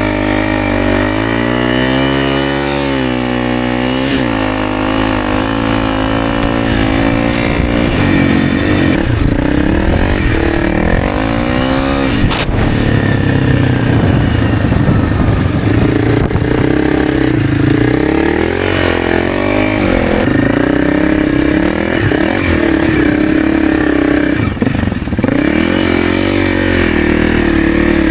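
Honda CRF300's single-cylinder engine revving hard, its pitch rising and falling as the bike is ridden through deep sand on the throttle. There is a single sharp click about twelve seconds in.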